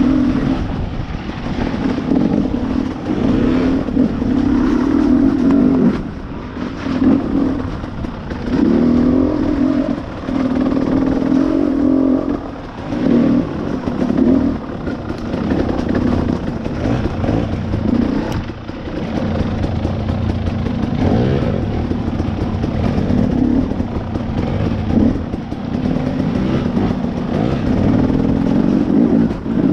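Two-stroke dirt bike engine, heard from on the bike, revving up and falling back again and again as the throttle is worked.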